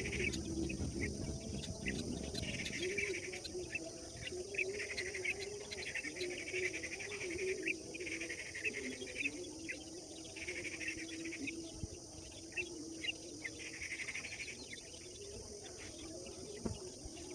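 Several birds chirping and twittering in repeated short phrases over a steady high insect drone, typical of crickets. A low wavering hum runs underneath.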